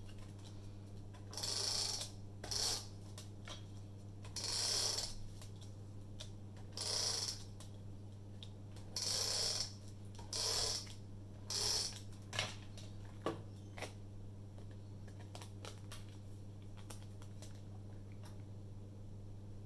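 Red roller tape runner laying adhesive strips on the back of a card panel: about seven short strokes, each half a second to a second long, followed by a few light clicks as the panel is set down.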